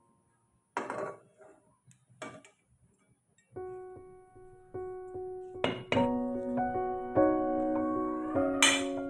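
Background piano music, with sustained notes coming in about three and a half seconds in, after a near-quiet start broken by two brief noises.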